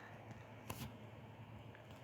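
Near silence: faint room tone with a steady low hum, and one brief soft rustle or click about two thirds of a second in.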